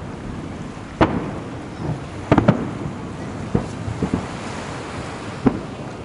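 Aerial firework shells bursting: a series of sharp booms, about six in all, two of them close together about two and a half seconds in, over a steady background rumble.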